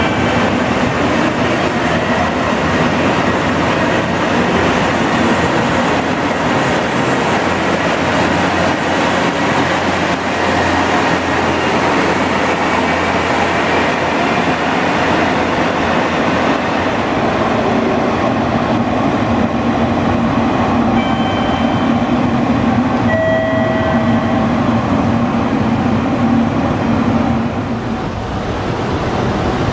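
JR Kyushu KiHa 125-400 diesel railcar pulling out of the station: its diesel engines run under load and the rail noise carries on as the two-car set moves off along the platform.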